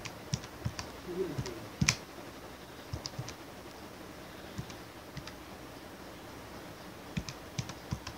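Computer keyboard keys tapped one at a time, in scattered single clicks and short runs, the loudest about two seconds in, with a pause of over a second before a last few taps near the end.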